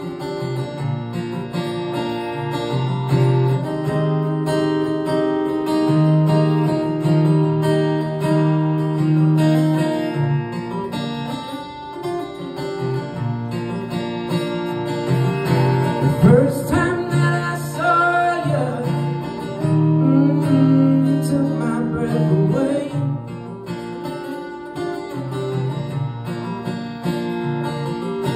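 Acoustic guitar played solo, strumming chords through an instrumental break between the song's sung lines.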